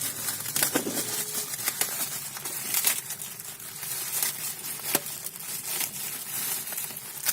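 Plastic packaging crinkling and crackling with many irregular sharp clicks as a sealed car subwoofer is unwrapped.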